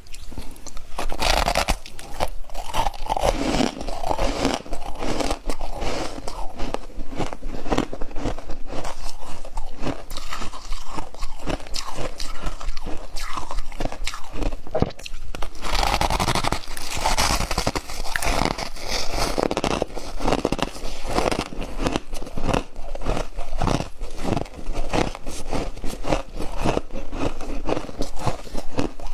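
Close-up biting and chewing of freezer frost, a dense, continuous run of crunches.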